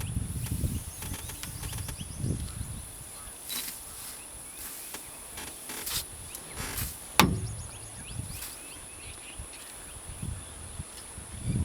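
Asian elephant bull feeding, with irregular rustling and tearing of vegetation that is loudest at the start and again near the end, and a single sharp snap a little past halfway. Faint bird chirps and a steady high-pitched hiss run underneath.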